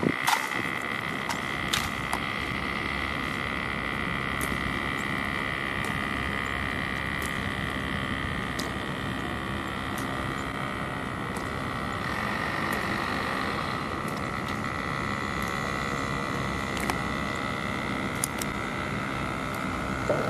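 Steady outdoor background noise with a continuous high hum, broken by scattered sharp clicks, a few close together at the start and a pair near the end.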